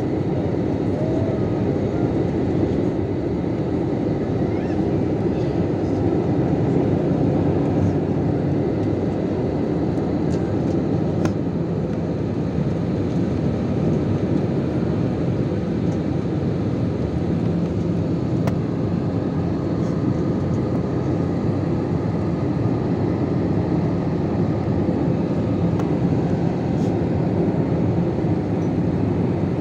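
Steady roar of a jet airliner's engines and rushing air, heard from inside the cabin at a window seat beside the engine.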